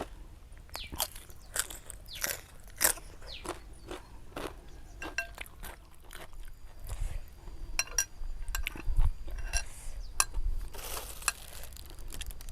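A person biting and chewing crisp food close to the microphone: a string of sharp, irregular crunches.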